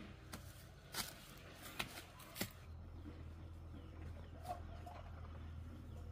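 A few sharp clicks or knocks in the first two and a half seconds, then faint short animal calls about four and a half seconds in, over a steady low hum.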